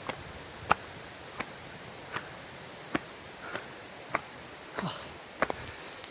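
Footsteps walking at a steady pace, a sharp step about every 0.7 seconds, over the steady rush of a distant waterfall.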